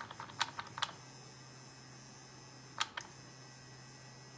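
Omega 2-speed electric powder trickler running with a low steady hum while it feeds kernels of long-grain IMR 7828 rifle powder into a glass cup. A quick run of sharp ticks comes in the first second, and a single tick about three seconds in.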